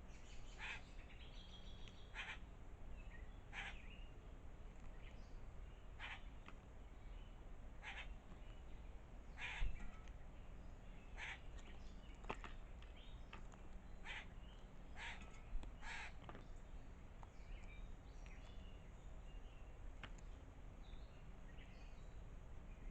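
A bird calling over and over outdoors, short calls about every one to two seconds that thin out over the last several seconds. A soft thump just under ten seconds in and another around fifteen seconds, over a steady low background hum.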